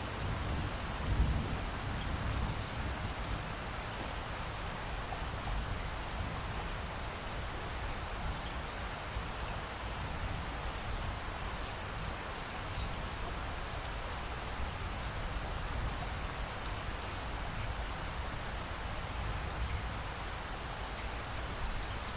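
Steady rain falling and pattering on surfaces, an even hiss, over a low uneven rumble that swells briefly about a second in.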